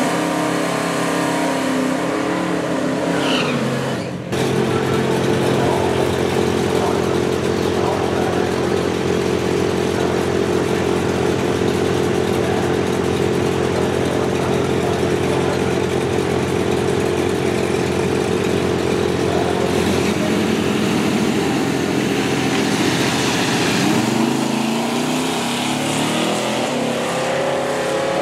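Drag-racing engines at the starting line: a Chevrolet Silverado dually pickup and a classic car running steadily while staged. Near the end they launch, and the engine note rises as they accelerate away.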